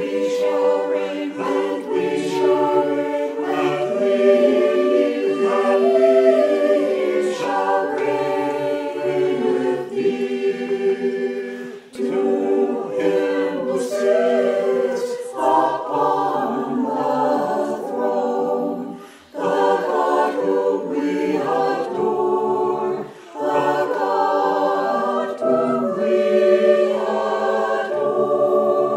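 A choir of about twenty voices singing a hymn unaccompanied in parts, with three short breath breaks between sung lines.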